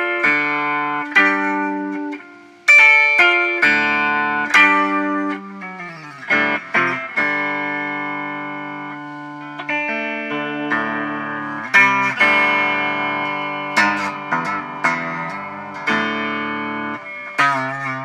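Electric guitar played solo: picked single notes and chords that ring and fade, with a few quick runs and pitch slides, and held notes wavering with vibrato near the end.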